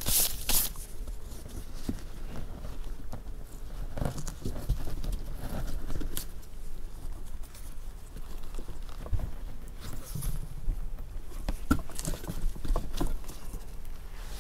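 Gloved hands pressing and smoothing canvas fabric onto a glue-coated fiberglass shell: irregular rubbing and scuffing with scattered taps and knocks.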